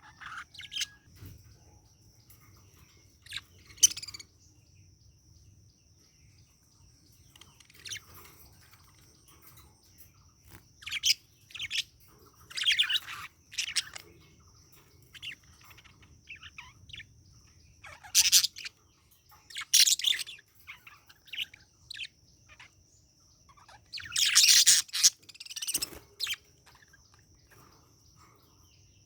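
Budgerigar chirping and chattering in scattered bursts, with a few louder warbling runs of notes separated by pauses.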